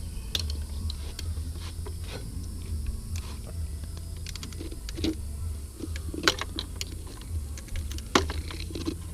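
Scattered small clicks and taps of hand tools working on car parts, with two sharper knocks about six and eight seconds in, over a steady low hum.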